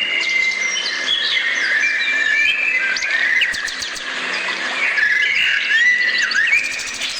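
Several songbirds singing together: many overlapping chirps, whistled notes and quick trills.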